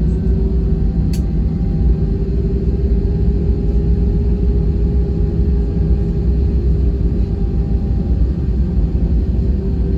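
Airbus A320 cabin noise: the jet engines give a steady hum over a heavy low rumble, the hum's pitch creeping slightly upward. A single sharp click about a second in.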